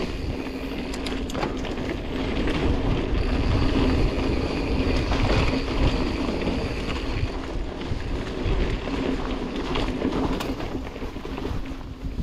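Mountain bike rolling along a singletrack trail: steady wind buffeting the microphone over the rumble of the tyres, with a few sharp knocks from the bike in the first second or so.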